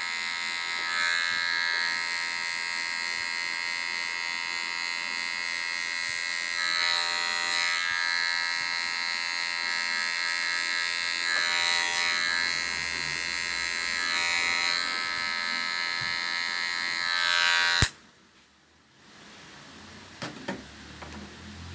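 Electric hair clipper (M-PRO) running with a steady buzzing hum as it is pushed up through short hair to blend a fade, its level swelling slightly with each pass. About 18 seconds in it is switched off with a click, leaving only a few faint knocks.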